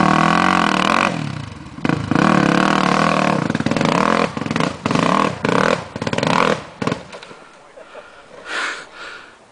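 ATV engine revving in repeated bursts as the throttle is opened and shut while the quad climbs a steep rocky hill under load. The engine sound drops away about seven seconds in.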